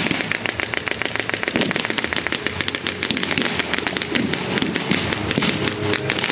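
A dense, unbroken crackle of rapid sharp pops, irregular and many to the second: blank gunfire and pyrotechnic charges in a battle reenactment.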